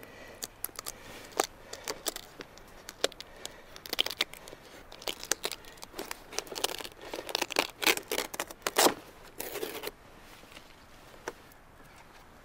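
Papery outer layers of birch bark being lifted with a knife and peeled off a bark sheet: a run of dry crackles and tearing rips, densest in the middle, that dies away about ten seconds in.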